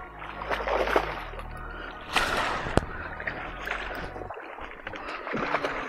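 A hooked drum thrashing at the water's surface, splashing in several bursts, with a sharp click near the middle.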